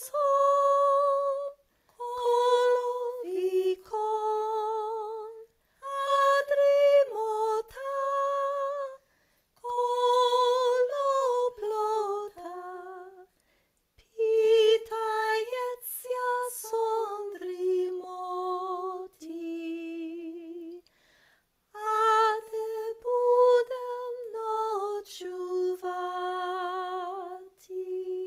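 A woman singing a traditional Ukrainian lullaby solo and unaccompanied, in slow held phrases with short pauses between them.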